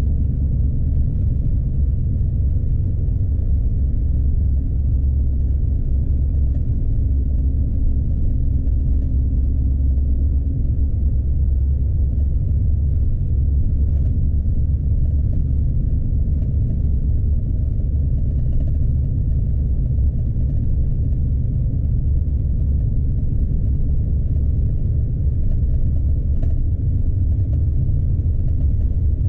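Steady low rumble of a Scania truck's diesel engine and tyres on a snowy road, heard inside the cab.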